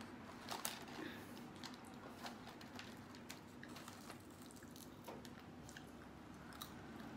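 Faint mouth sounds of eating fried chicken: soft chewing with small scattered crunches and clicks as the meat is pulled apart by hand and bitten.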